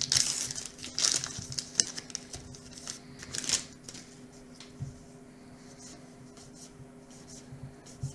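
A baseball card pack's wrapper crinkling and tearing open, in a run of loud rustles over the first three or four seconds, then the cards being slid out and flicked through, with soft scattered ticks.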